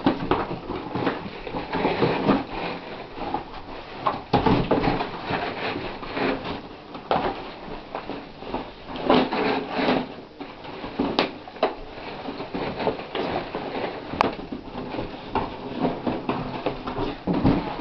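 Cardboard box scraping, rustling and knocking as a dog shoves it around, noses into it and carries it by the mouth, in irregular bursts.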